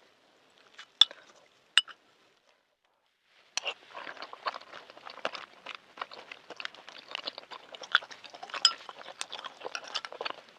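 Two sharp clinks, then close-miked chewing of balut (fertilized duck egg) from about three seconds in: a dense run of soft crunches and wet mouth sounds.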